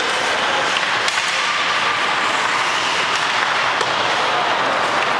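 Ice hockey play on a rink: a steady hiss of skates on the ice with a few sharp clacks of sticks and puck.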